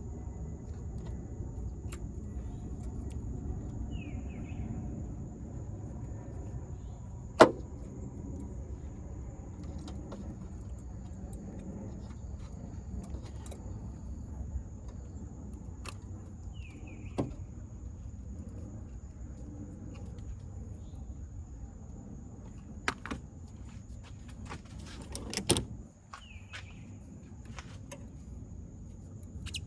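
Scattered sharp metallic clicks and clinks of hand tools on battery-terminal hardware, the loudest about seven seconds in, over a steady low background rumble.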